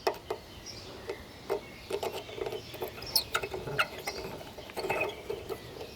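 Irregular light metallic clicks and ticks of hand tools working on the wood chipper's fasteners as a loosened bolt is undone.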